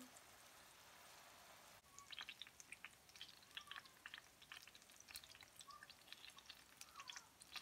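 Chicken-and-mushroom patties frying in oil in a pan, giving a faint sizzle that turns into quick irregular crackles and spits about two seconds in.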